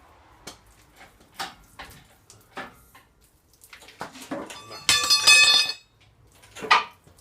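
Metal parts knocking and clinking in a workshop, with one loud ringing metallic clang about five seconds in.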